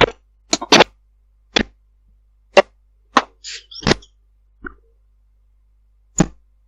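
A run of sharp knocks at uneven intervals, about nine in all, with dead silence between them, heard over a Viber voice call; their source is unexplained.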